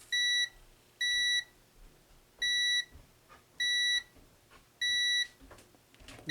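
Multimeter continuity tester beeping, one high electronic beep each time the repaired overdrive on/off pushbutton is pressed, about five beeps at uneven intervals of roughly a second. The beeps mean the switch contacts now close and conduct again after cleaning.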